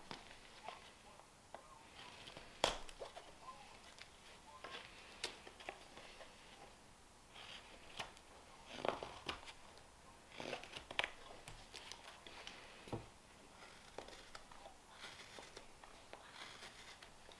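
Hook knife cutting out the bowl of a green-wood spoon: a run of short, irregular slicing and scraping cuts, with a few sharper clicks.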